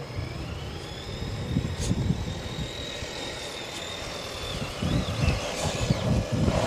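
Small electric motor of an RC crawler whining. The whine rises quickly at the start, holds steady and wavers near the end, over uneven low rumbling.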